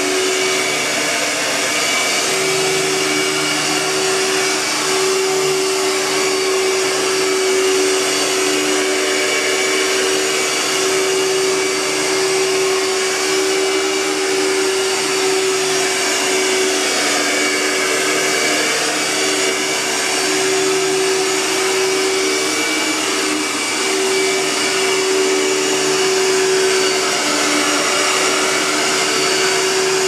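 Panasonic MC-V5320 upright vacuum cleaner with a 12-amp Lamb Electric motor, running steadily as it is pushed back and forth over carpet. Its whine wavers and shifts slightly with each stroke.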